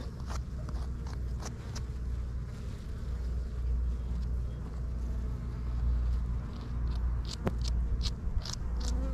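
Dwarf honey bees buzzing around a freshly cut open wild comb, with many short passes close by, thickest near the end, over a steady low rumble of wind on the microphone.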